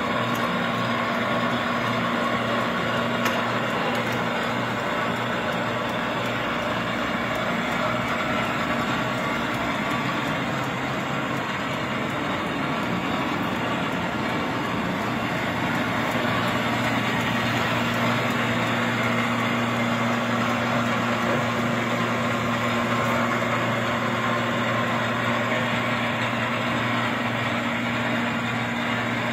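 Restored antique Royal #5 gas-fired peanut roaster running with its burner lit: a steady mechanical hum and rumble that does not change.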